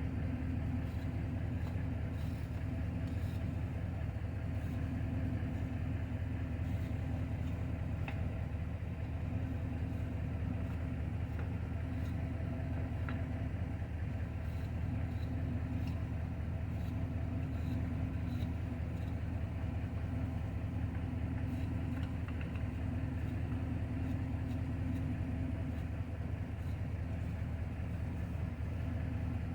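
Truck engine idling steadily, an even low hum that does not change.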